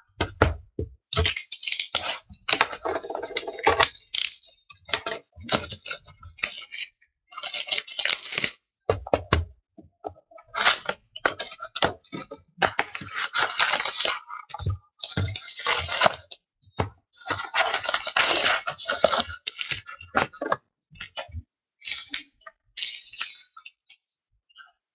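Wrapping of a 2015-16 O-Pee-Chee hockey card box and its packs being torn open by hand: a run of crinkling, tearing bursts, each lasting up to a couple of seconds, with short pauses between.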